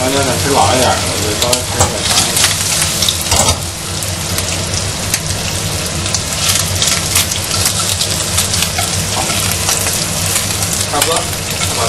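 Bacon slices sizzling and crackling in hot oil in a frying pan, with a steady low hum underneath.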